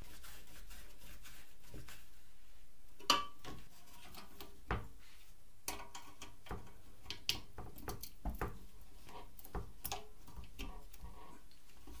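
Small metal clicks and knocks of a filmoscope's parts being fitted together by hand with a screwdriver: one sharper click about three seconds in, then a scatter of lighter ticks.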